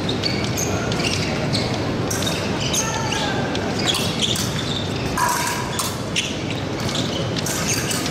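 Sounds of a fencing bout in a large hall: footfalls and thuds on the piste with sharp short squeaks, over a background of crowd voices. A short steady tone sounds about five seconds in.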